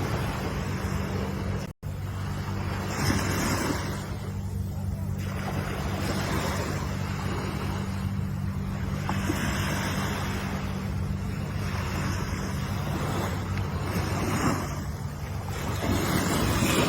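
Ocean waves washing in, the surf noise swelling and falling back about every three seconds over a steady low hum. The sound cuts out completely for an instant just before two seconds in.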